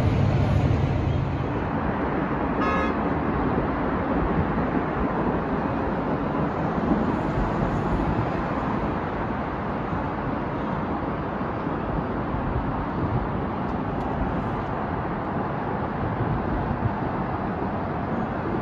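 A heavy military vehicle's diesel engine runs with a low, steady hum for the first second or so. The sound then changes to a steady wash of city street and traffic noise.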